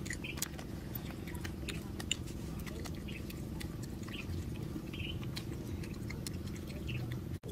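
Snail shells clicking and tapping as they are handled and the meat is picked out with thin sticks, scattered small clicks over a steady low hum, with a few faint short chirps.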